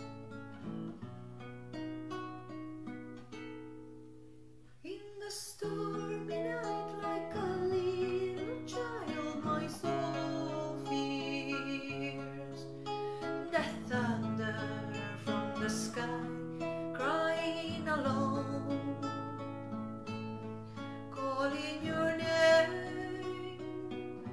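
Song introduction on acoustic guitar: sparse plucked notes at first, then about five seconds in a fuller, louder accompaniment joins with a wavering melody line on top.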